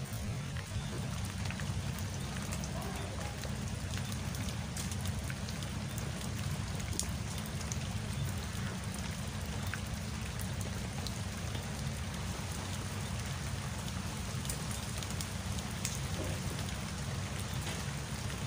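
Steady rain falling, with scattered ticks of drops over a low continuous rumble.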